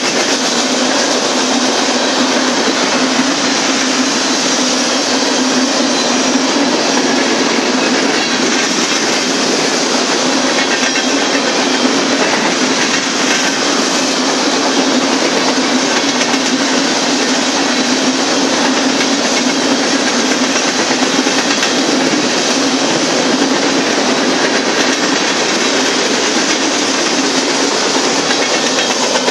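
Freight train tank cars rolling past: a steady, loud noise of steel wheels running on the rails, with clickety-clack over the rail joints.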